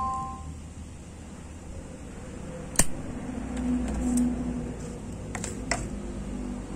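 A few sharp metallic clicks from a Zippo lighter being handled: one about three seconds in, then two close together near the end.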